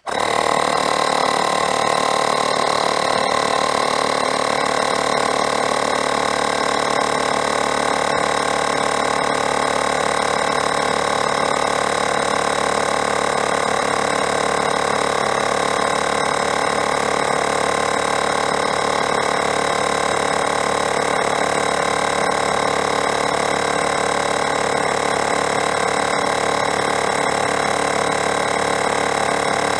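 Ferrex cordless mini air compressor switched on and running steadily, pumping up a trailer tyre from about 55 towards 60 psi.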